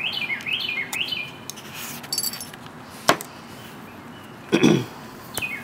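A songbird sings a quick run of falling chirps during the first second and a half. About three seconds in there is one sharp metallic click from the steel parts of an AR-15 bolt carrier group being handled. Near the end comes a short breathy huff.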